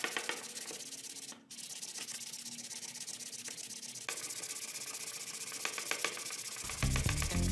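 A metal knife blade rubbed steadily against an abrasive, with a brief drop-out about one and a half seconds in and an abrupt change about four seconds in. A low, beat-like sound comes in near the end.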